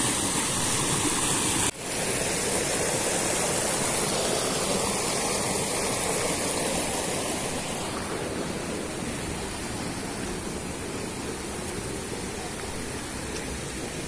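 Fast stream water rushing and splashing down a rocky, stone-lined channel: a steady, fearsome rush. It cuts out for an instant about two seconds in and is a little quieter from about eight seconds in.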